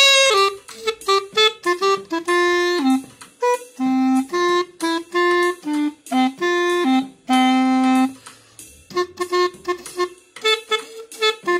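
3D-printed plastic pocket clarinet played as a solo melody line, mostly short notes with a few held longer notes about two seconds in and again about seven seconds in, and quick short notes near the end.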